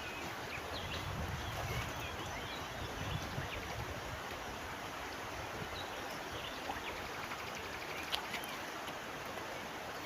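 Steady rushing of a river or stream, with a few faint high chirps over it.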